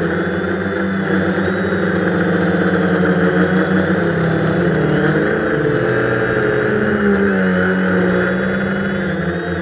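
Quadcopter's brushless motors and propellers whirring steadily, picked up by its onboard camera, with several tones wavering up and down in pitch as the throttle shifts.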